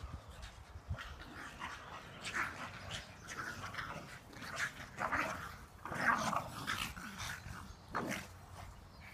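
A Boston terrier and a pug at play, making a string of short, irregular dog noises, growls and barks, starting about a second in.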